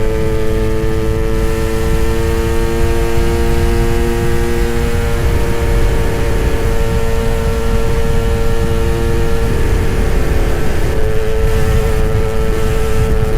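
Two-stroke motorcycle engines running at steady high revs on the move, over a continuous low rumble. One engine's tone drops out about nine and a half seconds in, and the main tone fades briefly before coming back about a second and a half later.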